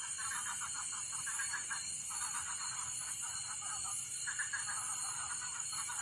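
Night chorus of insects and frogs: a steady high-pitched insect drone, with frogs calling in rapid pulsed trills that come in bursts of one to two seconds, several times over.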